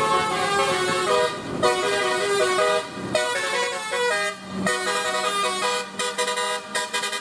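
Bus 'telolet' musical horn playing a quick tune of short stepped notes, several tones sounding at once, with brief breaks between phrases.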